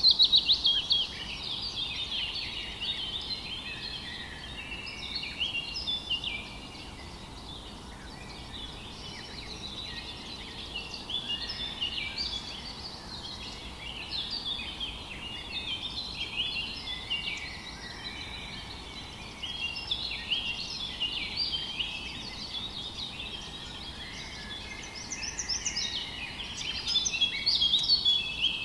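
A flock of small finches twittering, with many short overlapping chirps and trills that never let up; louder at the very start and again near the end.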